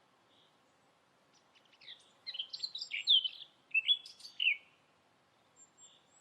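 A songbird chirping: a quick run of short high chirps and slurred gliding notes lasting about three seconds, starting about a second and a half in.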